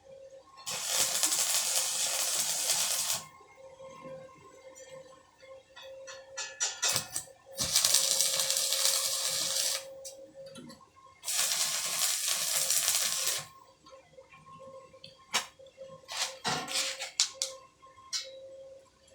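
Welding arc crackling in three bursts of about two seconds each, with clicks and knocks between them.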